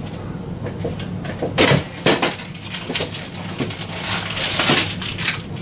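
Rummaging in a refrigerator: a few knocks and clinks as items on the shelves are moved about, then about a second of rustling near the end.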